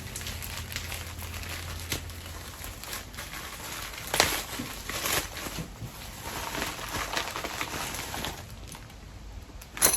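Packaging being handled and opened, crinkling and rustling, with scattered clicks and two sharp knocks, one about four seconds in and one near the end.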